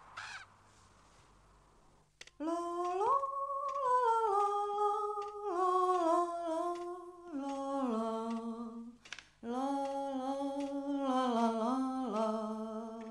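A woman humming a melody, holding each note for about a second and sliding between them. It starts about two seconds in and breaks off briefly near the middle.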